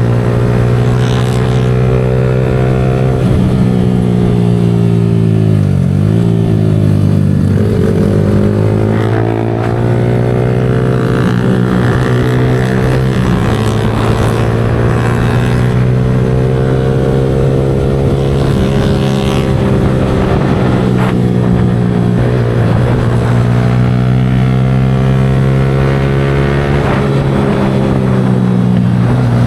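Yamaha R15 V4's single-cylinder engine running continuously under way, its pitch dropping and climbing again several times as the revs fall and pick back up.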